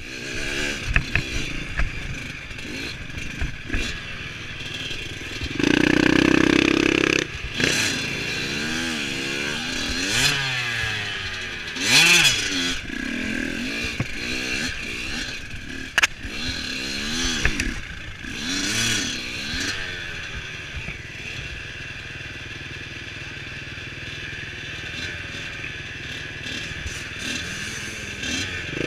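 Dirt bike engine revving up and down again and again as it is ridden over rough ground, with clatter and knocks from the bike. A loud burst of low noise lasts about a second and a half, about six seconds in, and the engine runs steadier and quieter in the last third.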